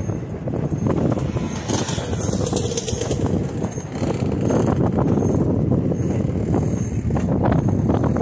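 Passenger railroad car rolling along the track: a steady rumble with frequent clicks and knocks from the wheels and rail joints, growing louder about four seconds in.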